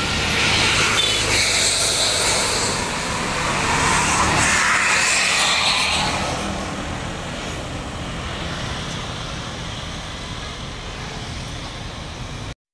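Road traffic: engine and tyre noise of vehicles passing, swelling twice in the first six seconds, then fading to a steadier, quieter traffic hum that cuts off abruptly near the end.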